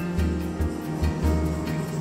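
Music with a steady bass beat under held tones.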